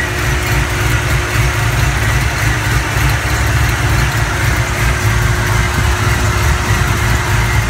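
Supercharged Ford V8 with a belt-driven Powerdyne centrifugal supercharger, idling steadily.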